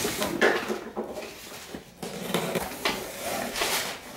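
Cardboard shipping box being opened by hand: flaps pulled back and cardboard scraping and rustling in a run of uneven scrapes.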